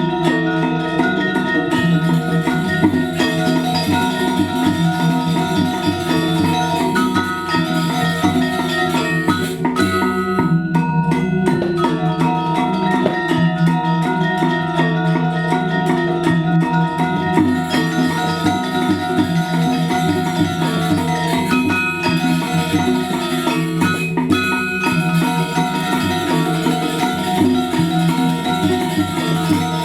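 Balinese gamelan playing the music for a Legong dance: bronze metallophones ringing in fast, busy patterns that carry on without a break.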